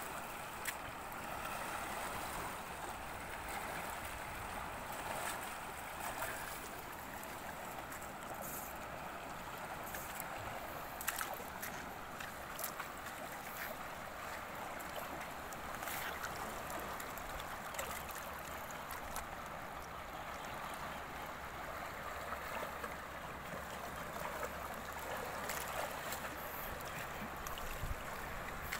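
Shallow sea water washing among rocks: a steady, even hiss, with a few faint clicks scattered through it.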